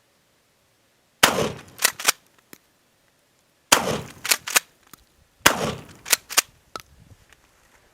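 Three 12-gauge shotgun blasts from a Winchester Model 1300 pump-action firing birdshot, spaced about two seconds apart. Each blast has a fading tail and is followed by two quick sharp clicks.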